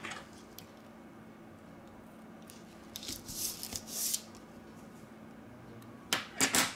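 Red adhesive tape pulled off its roll with a rustling rip around three to four seconds in, then two sharp snips of small scissors cutting the strip near the end.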